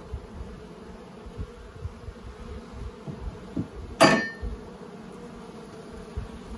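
Honeybees humming steadily from an open hive full of bees, with low handling bumps and one sharp, loud clack about four seconds in that leaves a brief ring.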